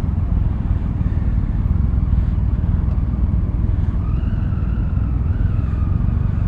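Many motorcycle engines running together as a pack of bikes moves off slowly, a dense steady low rumble. About four seconds in, a higher wavering tone joins it.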